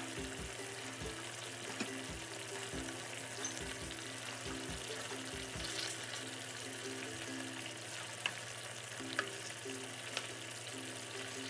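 Curry sizzling and simmering in a frying pan as it is stirred with a wooden spoon, with a few sharp clicks in the second half, over soft background music.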